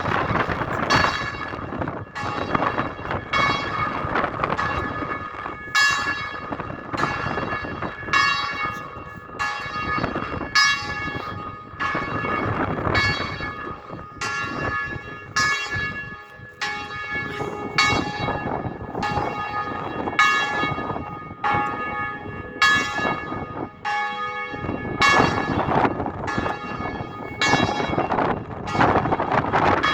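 Church bells ringing, a new strike about every second, each one left to ring on into the next. Wind noise rushes underneath.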